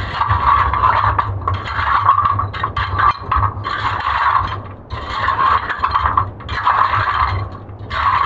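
A person crawling through a low, wet cave passage, body and clothing scraping and sliding over wet cobbles in rough pushes about once every second or so, over a steady low hum.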